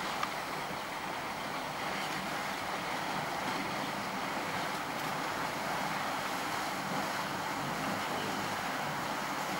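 Steady splashing and sloshing of water as a herd of African elephants wades through a shallow river channel.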